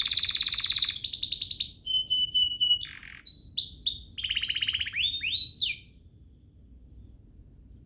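Domestic canary singing a fast, varied song of rapid trills and repeated whistled notes and swoops. It stops about six seconds in.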